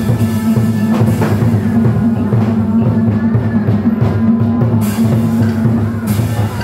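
Drum-led music of a tuồng (Vietnamese classical opera) ensemble, with repeated drum strokes over a sustained low tone.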